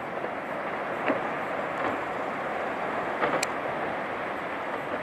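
Icebergs collapsing into the fjord: a steady rushing roar of falling ice and churning water, with a few sharp cracks about a second in and again just past three seconds.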